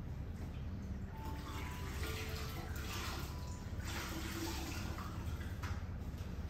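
Water running and splashing, as from a tap into a basin. It starts about a second in and eases off near the end, over a steady low hum.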